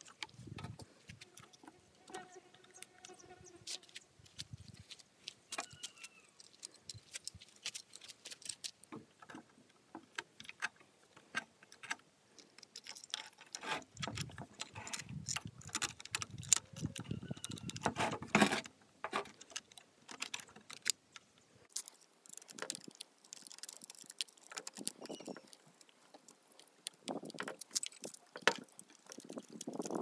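Scattered metallic clicks and clinks of chainsaw carburetor parts being handled and fitted back together, with the aluminium intake plate being seated over the carburetor. A denser run of knocks and handling noise comes in the middle.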